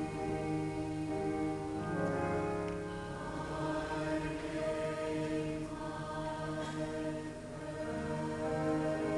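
Salvation Army choir singing in harmony, with long held chords that move from one to the next every second or so.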